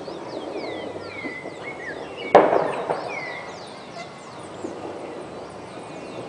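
Birds calling with many short, overlapping descending whistles, and a single sharp bang a little over two seconds in, the loudest sound.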